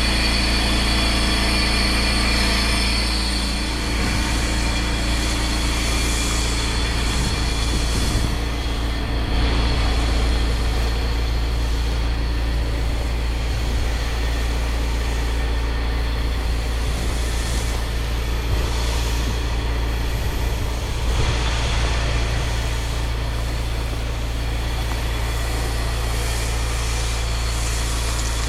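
Engine of pressure-washing equipment running steadily, with water spray hissing that swells and fades as the wand is worked.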